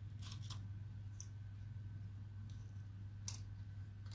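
Quiet handling of paper cards: a few short, faint rustles and one sharp tap about three seconds in, over a steady low electrical hum.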